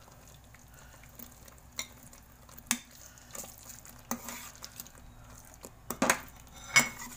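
A steel spoon clinks and scrapes against a steel kadai as paneer cubes go into thick gravy and are stirred in. There are a few scattered clinks, and the loudest two come near the end.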